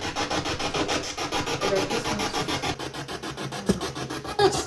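Spirit box (a radio scanner used in ghost hunting) sweeping through stations: a rapid, choppy stream of static and radio fragments, about eight or nine chops a second.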